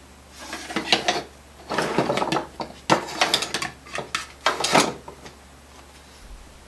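Hand tools and small parts being handled on a workbench: a run of irregular clicks, knocks and rattles lasting about five seconds.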